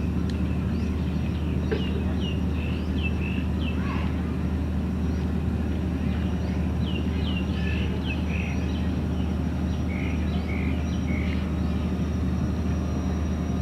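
A steady low motor drone, with short high chirping calls coming in runs over it, a cluster in the first few seconds and another past the middle.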